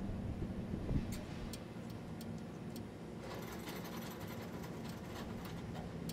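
Diesel semi-truck engine idling, a steady low hum, with scattered sharp ticks and clicks over it.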